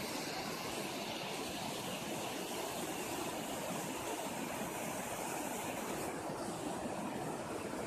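Steady rushing of the Zanskar River's open, unfrozen water flowing alongside the ice.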